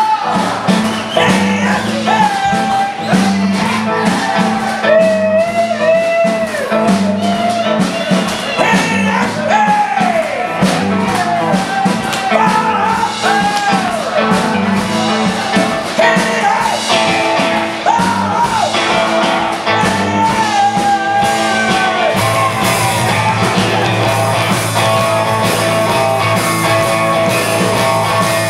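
Rockabilly trio playing live with electric guitar, bass and drums, and a man singing. About 22 seconds in the singing stops and the band plays on.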